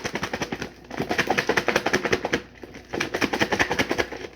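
Rapid rattling clatter from kitchen containers being handled, in three bursts of about a second each.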